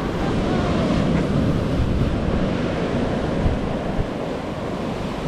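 Steady rushing noise of wind buffeting the microphone over breaking surf.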